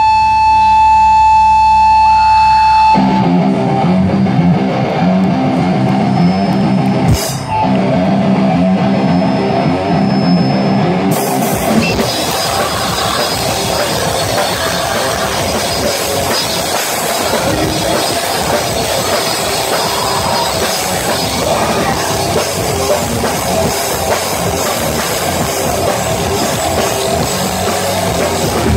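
Live rock band playing loud on electric guitars, bass guitar and a drum kit. A held chord rings for the first few seconds, the full band comes in about three seconds in, and the cymbals fill in the top around eleven seconds in.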